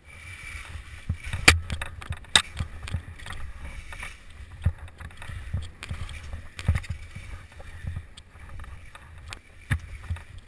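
Skis sliding and scraping over snow at speed, with repeated sharp knocks and clatters from bumps and pole plants, the loudest about one and a half and two and a half seconds in. A low wind rumble runs on the microphone throughout.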